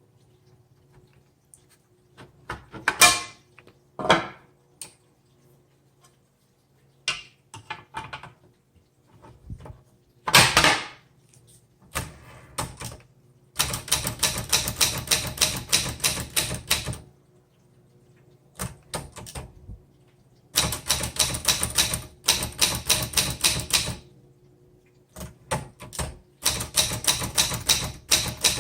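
Olivetti-Underwood 21 manual typewriter: a few separate heavier clacks, then three runs of rapid keystrokes a few seconds each as text is typed.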